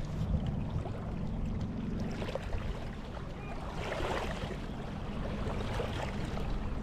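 Steady low rumble of wind on the microphone over moving water, with a few faint scattered ticks.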